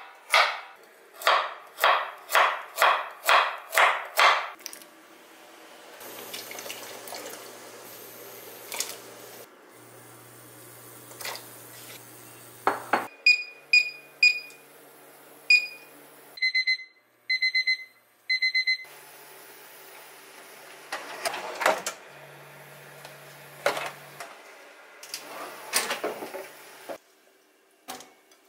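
A kitchen knife chopping burdock root on a wooden cutting board, about eight quick strikes. Later a digital kitchen timer beeps several times as its buttons are pressed, then gives three pairs of beeps, followed by a few clatters of kitchenware.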